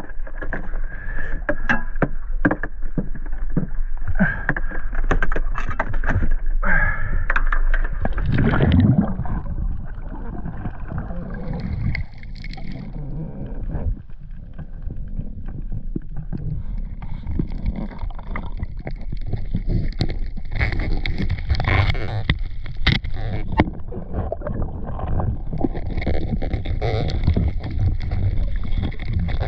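Clicks, knocks and rattles of crayfish being handled and stowed in a boat's esky, with a loud low thump about nine seconds in; after that, a muffled, even water noise heard underwater over a reef.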